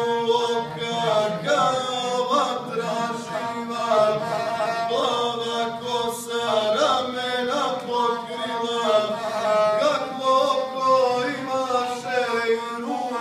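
A man singing a Serbian epic song in a chanting style while bowing the gusle, a single-stringed folk fiddle with a horsehair string, which follows the voice's line throughout.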